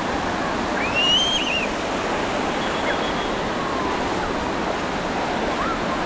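Ocean surf washing in steadily on a sandy beach, with the voices of a crowd of bathers underneath. About a second in, a person lets out a brief high-pitched squeal that rises and falls.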